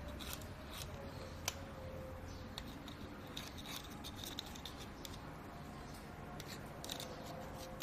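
Faint small clicks and light rubbing as a tire repair kit's needle tool and rubber cement tube are handled, with one sharper click about a second and a half in.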